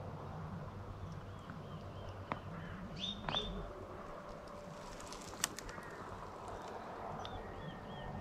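Woodland birds calling: a small bird repeats short, high chirps, with two louder, sharper calls about three seconds in. A few faint clicks come in the middle.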